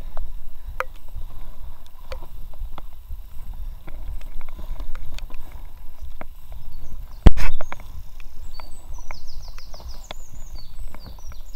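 Handling and paddling noise in an inflatable kayak: scattered small knocks of the paddle shaft against the boat over a low rumble, with one loud sharp knock about seven seconds in.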